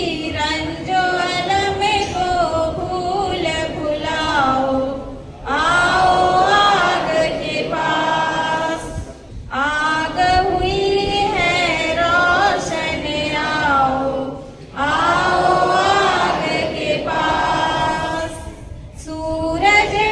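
A group of voices singing together without instruments, in phrases of about four to five seconds with short breaks between them.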